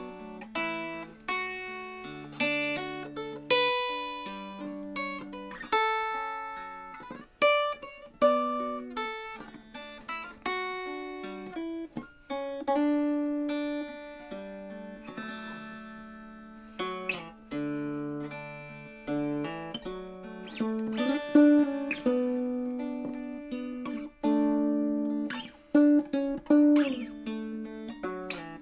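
Solo mountain dulcimer fingerpicked: a melody of plucked notes over steadily ringing drone strings.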